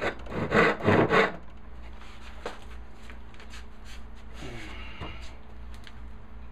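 Hand panel saw cutting walnut: several quick strokes in the first second or so, then the sawing stops, leaving only faint small handling sounds.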